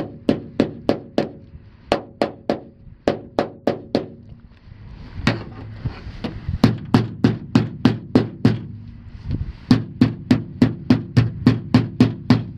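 Repeated hard hammering strikes, about three a second, in runs of several blows with short pauses between.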